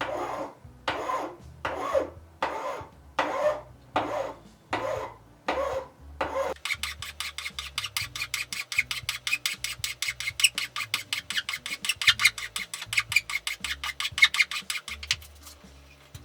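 Hand file or rasp scraping across a wooden plane knob: slow, steady strokes a little under a second apart, then about six seconds in a fast, even run of short rapid strokes that stops near the end.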